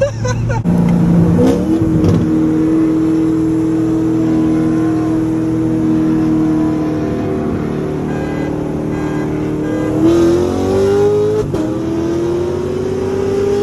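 C7 Corvette's V8 engine under hard throttle, heard from inside the cabin: the revs climb sharply about a second in, hold a steady high note for several seconds, then climb again, drop briefly near the end and rise once more.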